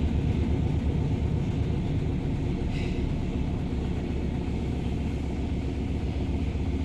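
LG top-loading washing machine running: a steady low motor hum and rumble, with a brief faint higher hiss about three seconds in.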